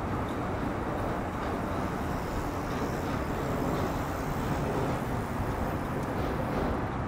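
Steady rumble of a tram running away along its rails, mixed with road traffic.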